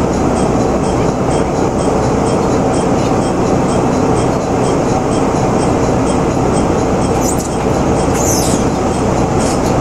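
Interior sound of a KTR700 diesel railcar running and slowing into a station: a steady engine and wheel rumble, with a faint regular ticking in the first half and a few short high brake squeals near the end.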